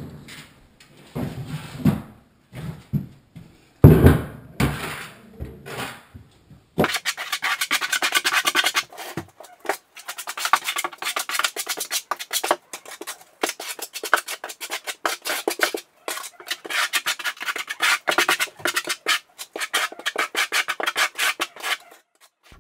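A steel trowel scrapes and spreads Kerabond unmodified thinset mortar over Kerdi-Board seams in short, irregular strokes, with one louder knock about four seconds in. About seven seconds in, background music with a quick, even run of plucked notes starts and carries on.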